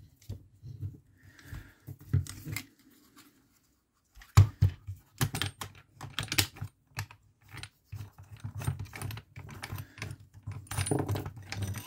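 Irregular clicks, taps and knocks of hard plastic wing-mirror fold-mechanism parts and a metal socket extension being handled and fitted together. There is a near-silent pause about three seconds in, one sharp knock just after four seconds, then busier clicking.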